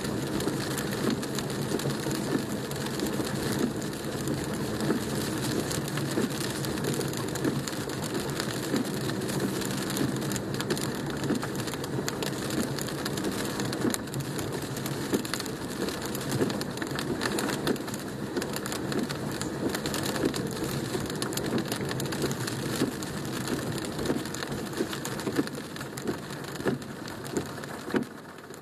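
Heavy rain drumming on a car's roof and windshield, heard from inside the cabin as a dense, constant patter of drops. Right at the end it thins to fewer, separate drops.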